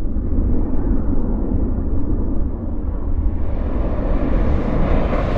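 Air rushing over the camera of a descending rocket payload: a low, noisy rumble that grows brighter and fuller from about three seconds in as the payload falls into thicker air.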